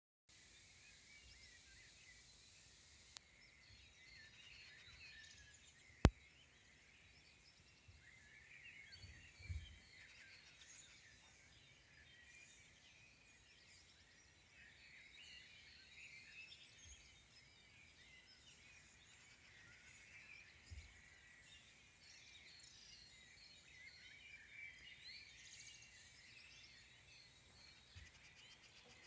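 Faint chorus of many small songbirds chirping and trilling over one another without pause. A single sharp click comes about six seconds in, and there are a few soft low thumps.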